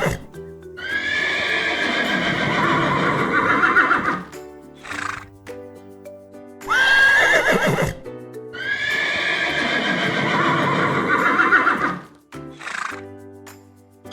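Horse whinnying twice, over background music. Each whinny opens with a sharp high cry and runs on for about three seconds, wavering in pitch.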